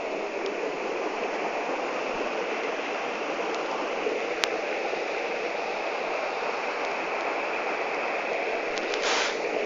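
Mountain stream water flowing steadily, with one faint click about four and a half seconds in and a brief surge of noise near the end.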